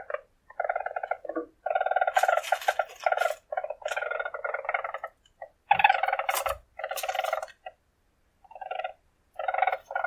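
Weasel purring: a run of buzzy, finely pulsed trills, each lasting from a fraction of a second to about two seconds, separated by short gaps, with a longer pause near the end.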